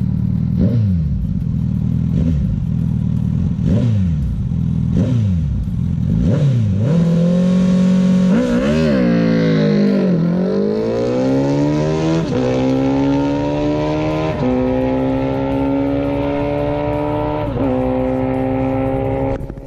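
2012 Suzuki Hayabusa's inline-four engine revved in a series of quick blips, then held at high revs before launching. It pulls hard down the drag strip, the pitch climbing through each gear, with three upshifts heard as sudden drops in pitch in the last ten seconds.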